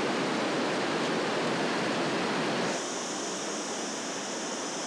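Steady rushing of river water flowing through a deep gorge. A little under three seconds in it turns slightly quieter and thinner, with more high hiss.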